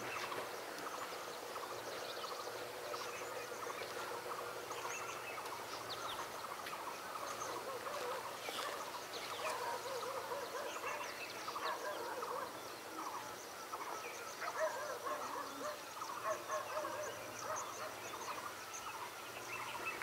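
A dense chorus of bird calls: many short chattering notes overlapping without pause, with a faint steady low hum underneath.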